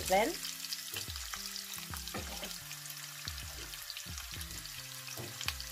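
Chopped onion frying in hot oil with whole spices in a pan, a steady sizzle with fine crackles, under soft background music.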